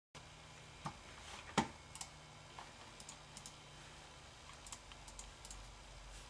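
Faint, scattered clicks and taps on a computer keyboard, the loudest about one and a half seconds in, over a low steady hum.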